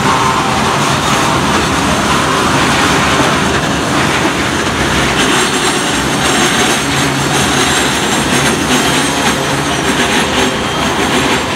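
Freight train of CSXT aggregate hopper cars rolling past close by: a steady rumble and clatter of steel wheels on the rails.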